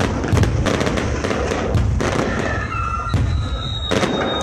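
Aerial fireworks bursting in quick succession: a dense run of sharp bangs and crackle over a continuous low rumble. Thin, steady high whistling tones come in during the second half.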